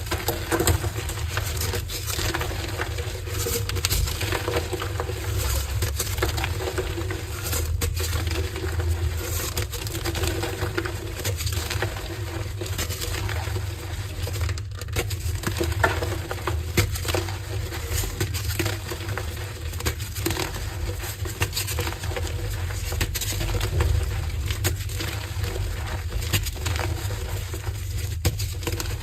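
Blocks of gym chalk being crushed and crumbled, a steady, dense crunching and crackling.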